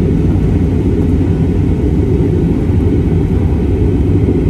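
Jet airliner cabin noise in flight: a steady, even low rumble heard from inside the cabin.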